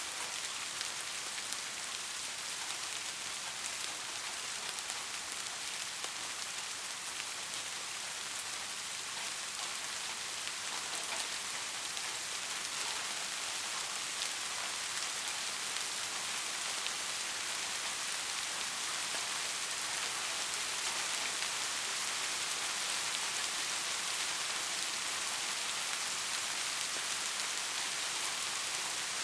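Soft, steady rain falling, a continuous hiss of many fine drops with no thunder.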